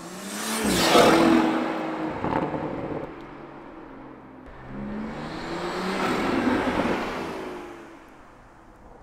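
Toyota GR Supra (A90) with its turbocharged 3.0-litre B58 straight-six and an MST V2 cold-air intake, heat shield cover on, passing by under heavy throttle. The engine and intake noise is loudest about a second in, and its pitch drops as the car goes past. A second, more distant run builds and fades between about five and seven seconds in.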